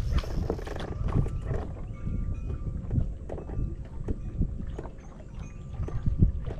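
Wind rumbling on the microphone, with scattered light knocks and clicks of rod, reel and boat handling while a big bass is being played in, and a faint broken high whine.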